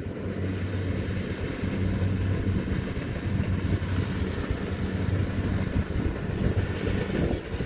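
Kubota DC70 combine harvester's diesel engine running with a steady low hum.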